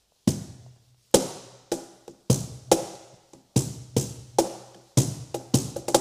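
Percussion hits in a loose, repeating rhythm, each a sharp strike with a deep boom that fades away, opening a song before any singing starts.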